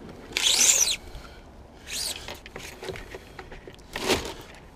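Fish-measuring tape being pulled out of its reel case in three short pulls: a loud one about half a second in, another about two seconds in, and a third near the end.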